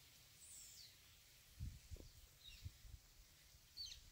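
Near silence with a bird's faint, short high chirps falling in pitch, three times, and a few soft low thumps in the middle.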